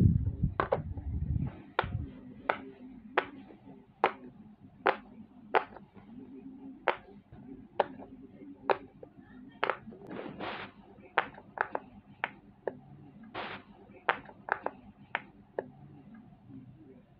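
Heart-shaped silicone pop-it fidget toy: fingers pressing its bubbles one after another, a short sharp pop roughly every half second to a second, about twenty in all.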